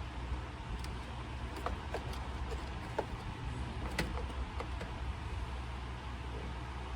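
A few small, sharp clicks and ticks of wire and hand tools being handled, scattered through the middle, over a steady low hum.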